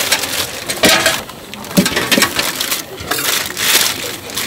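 Thin plastic sheet crinkling and rustling in uneven bursts as it is pulled off the top of a large aluminium pot of hotteok dough.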